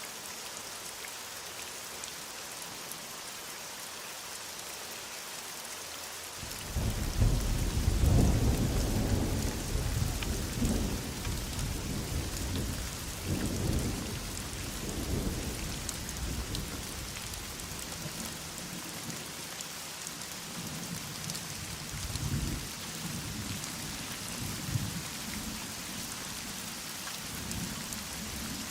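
Steady heavy rain falling, joined about six seconds in by a sudden deep roll of thunder. The thunder is loudest just after it starts, swells again a few seconds later, then dies away into fainter rumbles.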